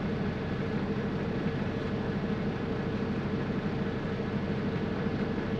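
Semi-truck diesel engine idling steadily, a low even hum heard from inside the cab.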